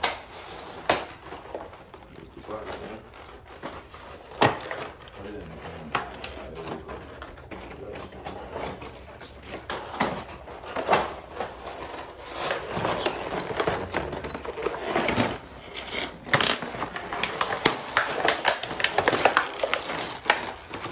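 Metal door-lock hardware being handled and fitted: scattered clicks, clinks and knocks of the lock parts, with low voices in the background.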